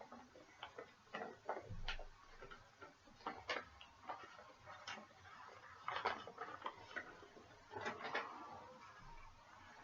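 Faint, irregular small clicks and light taps, unevenly spaced, several a second at times.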